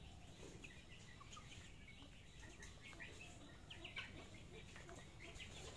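Faint, short bird chirps and light pecking clicks from young chickens and a peafowl feeding on chopped greens on the ground.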